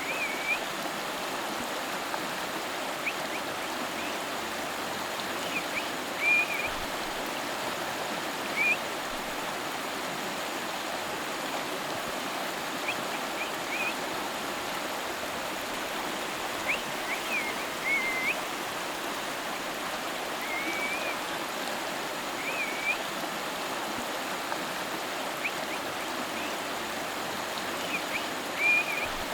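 River water flowing in a steady rushing stream. Brief high-pitched chirps break in every few seconds above it.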